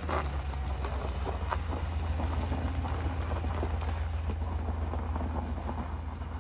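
GMC Yukon SUV's V8 engine running as it pulls away slowly over a snow-dusted gravel drive: a steady low rumble with scattered small crackles. Wind is on the microphone.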